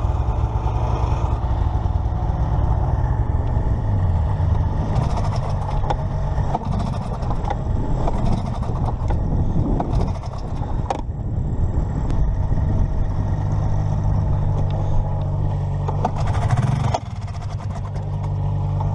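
Vintage snowmobile's two-stroke engine running at a steady idle. It dips briefly about four seconds in, and its level drops near the end.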